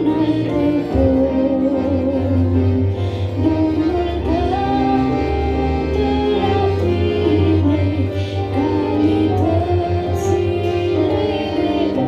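A woman sings a Christian hymn into a handheld microphone over a steady instrumental accompaniment with sustained low notes.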